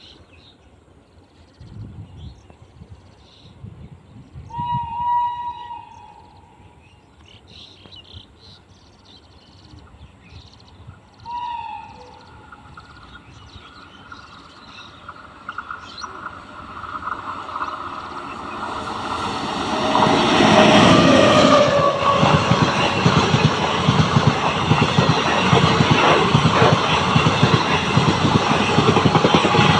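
Express train approaching and sounding its locomotive horn twice, a longer blast then a shorter one, then passing close by with a loud, fast clatter of wheels over rail joints.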